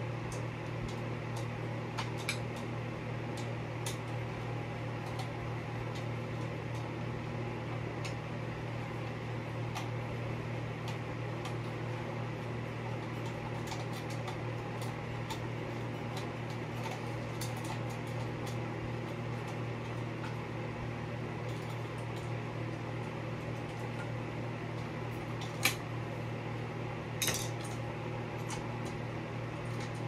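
Small metal clicks and clinks as a ceiling fan blade's metal bracket and screws are worked loose from the fan's motor housing, with two sharper clicks near the end, over a steady hum in the room.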